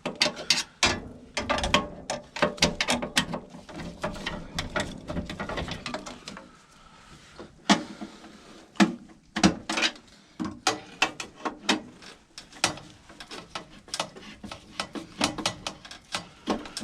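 Ratcheting hand tool clicking in quick irregular runs with scattered metal knocks, as screws on a furnace inducer motor are turned.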